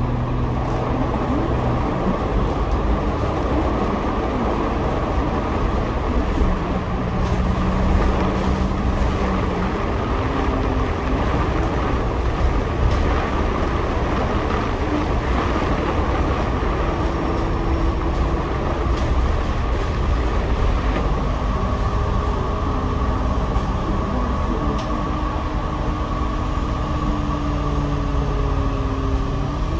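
Double-decker bus heard from its upper deck while driving: steady engine and road noise, with the engine note shifting in pitch as the bus pulls away and changes speed.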